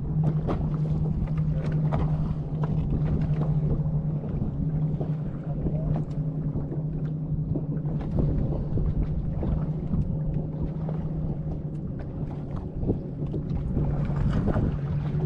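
Bass boat motor humming steadily at one pitch, with many short knocks of choppy water slapping the hull.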